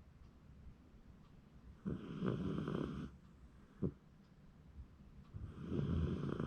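Shiba Inu snoring in its sleep: two snores about a second long, around two and six seconds in, with a short sharp sound after the first.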